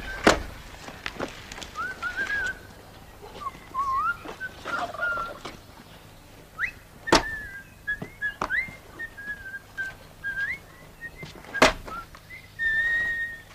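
A person whistling an idle, wandering tune, broken into short phrases, with a few sharp knocks over it.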